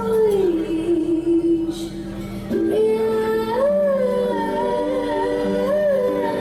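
Music: a slow song with a sung melody of long held notes that glide and waver, over sustained low chords.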